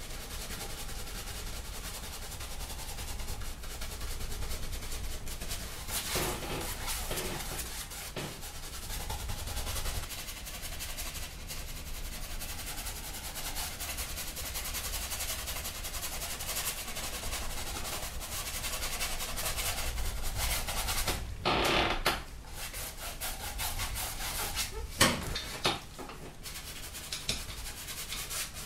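Paintbrush scrubbing and stroking oil paint onto a stretched canvas, a steady rubbing hiss with a few sharper, louder sounds, the strongest a little over two-thirds of the way through and again a few seconds later.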